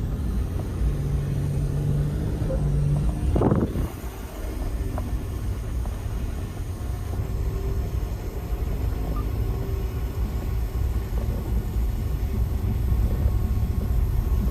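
Vehicle on the move: steady low rumble of engine and road, with one short knock about three and a half seconds in.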